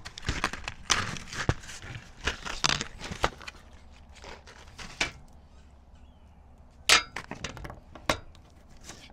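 Steel smoker parts and hardware clinking, rattling and knocking as they are handled and fitted during assembly. A busy stretch of clatter comes first, then a few separate sharp knocks, the loudest about seven seconds in and another a second later.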